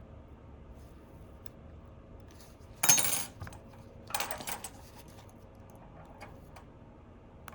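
Small metal repair tools clattering on a workbench in two short bursts, the first louder and the second about a second later, with a few faint clicks between.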